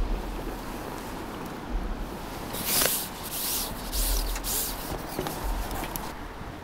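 Rustling and scuffing as an angler handles his rod and tackle, with a run of hissing scrapes through the middle and a few dull low bumps.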